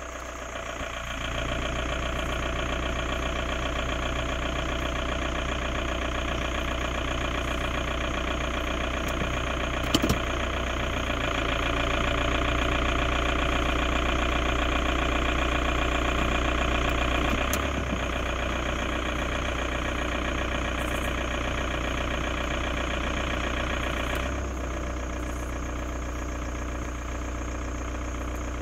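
2002 Volkswagen Jetta TDI's 1.9-litre four-cylinder turbodiesel idling. It gets louder about a second in as the air conditioning comes on. A sharp click comes about ten seconds in, then the engine runs louder under load in Drive for several seconds before easing back in Park, and it drops again as the AC is switched off near the end.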